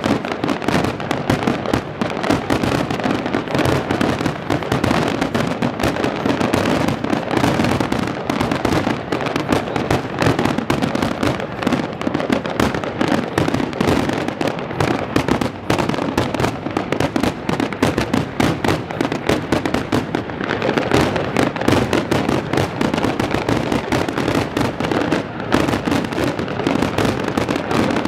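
Fireworks display: a dense, continuous barrage of shells bursting, bangs and crackles following one another with no pause.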